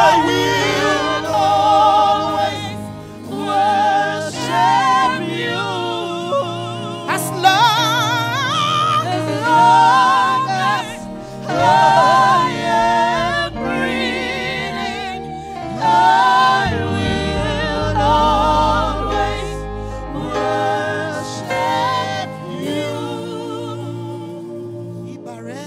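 Live gospel praise singing: a woman's lead voice, sung with wavering vibrato, joined by backing singers over an instrumental accompaniment with steady bass notes.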